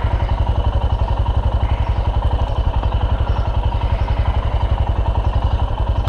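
Royal Enfield Himalayan's single-cylinder engine running steadily while being ridden, its firing pulses coming at an even rate.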